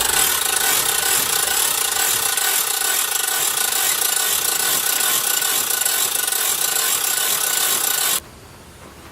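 A loud, steady rasping noise with a faint whine through it, cutting off suddenly about eight seconds in.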